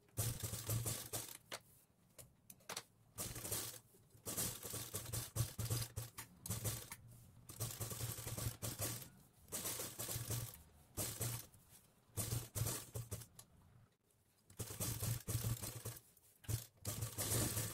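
Sewing machine stitching in short stop-start runs, about a dozen bursts of fast clatter each lasting half a second to two seconds. This is the pattern of sewing small hook loops onto a blouse opening and back-stitching both ends of each loop.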